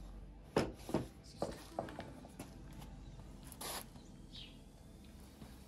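A series of light knocks and clicks from handling, the first and loudest about half a second in, then several more at irregular intervals. A single faint bird chirp comes near the end.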